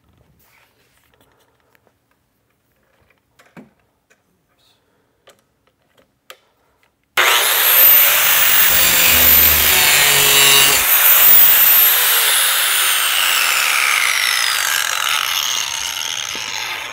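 Corded angle grinder starting up about seven seconds in and grinding the cutting edge of a steel lawn mower blade held in a sharpening jig: a loud, harsh grinding over a high motor whine that rises at start-up and fades near the end as the grinder is taken off. Before it, only a few faint handling clicks.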